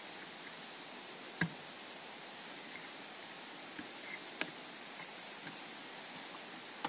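Small sharp clicks of a 4-position DIP switch's toggles being flipped by a fingertip: a clear one about a second and a half in, another three seconds later, and a few fainter ticks, over a steady hiss.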